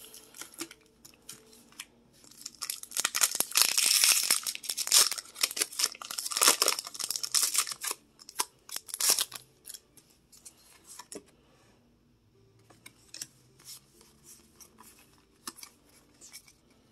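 Foil Pokémon TCG booster pack wrapper crinkling and being torn open, loudest for several seconds in the first half, then giving way to quieter rustling and light clicks of cards being handled.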